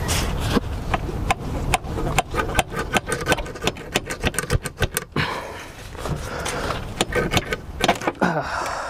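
Hand tools on metal truck-engine parts: a quick, irregular run of sharp clicks and knocks, several a second, as a stuck part is worked loose. A steady low rumble sits underneath.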